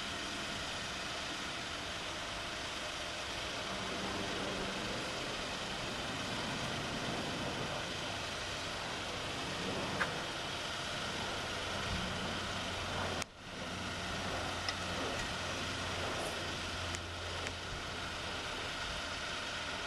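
Car engine idling steadily, heard from inside the cabin, with a brief break in the sound about 13 seconds in.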